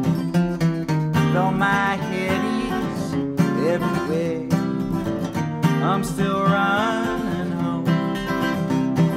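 Acoustic guitar strummed steadily through a wordless passage of a song. A melody line glides in and out over it in a few short phrases.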